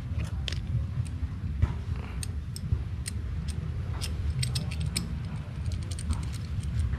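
Small metal parts of an alloy highway foot peg clicking and clinking as they are handled and fitted together by hand: a bolt, nut and washers tapping against each other in quick, irregular clicks. A steady low rumble runs underneath.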